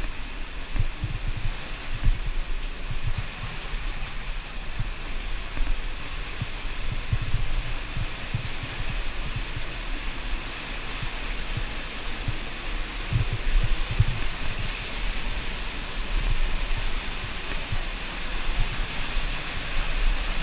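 Steady rush of an underground river flowing over rocks, with irregular low thumps from wading through the water and jostling the camera.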